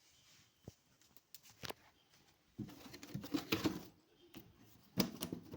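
Maine Coon cat making low cooing trills, mixed with scattered clicks and rustling, in two bursts: one a little before the middle and a shorter one near the end.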